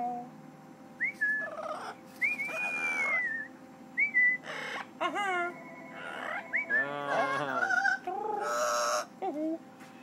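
A parrot whistling and squawking: a run of short whistles that rise or rise and fall, mixed with harsher, buzzier calls, and one rasping screech near the end.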